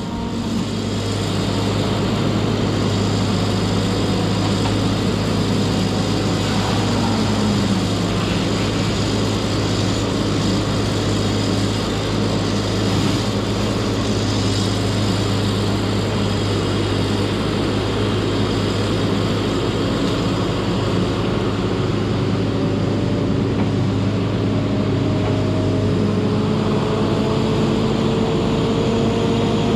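Hot saw feller buncher's diesel engine running hard and steady, rising to full level over the first couple of seconds, with whining tones that shift in pitch and one that slowly climbs near the end.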